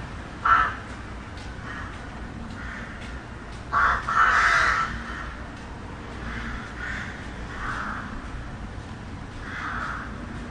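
Crows cawing over a steady low hum of city traffic: one loud caw about half a second in, two more around four seconds in with the second drawn out, then several fainter caws.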